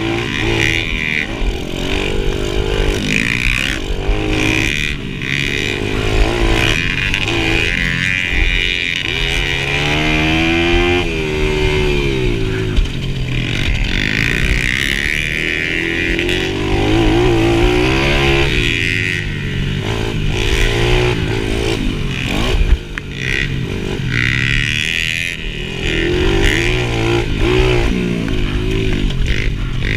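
Dirt bike engine racing around the track, its pitch rising and falling repeatedly as the rider opens and closes the throttle through the gears.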